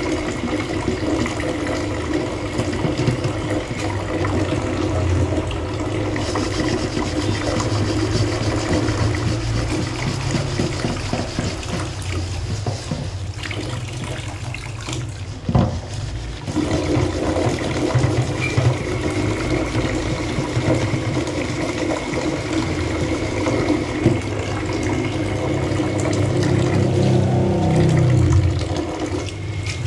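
Tap water running into a stainless-steel sink while a nonstick pot is scrubbed with a sponge and a steel-wool scourer, with one knock about halfway through.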